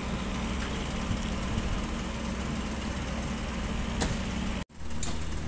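Heavy diesel vehicle engines running steadily at idle, a low even drone. The sound cuts out completely for an instant near the end.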